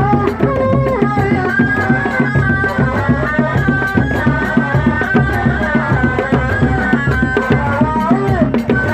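Sundanese reak music: dogdog drums and other drums beating a fast, dense rhythm under a high melody line that bends and wavers in pitch.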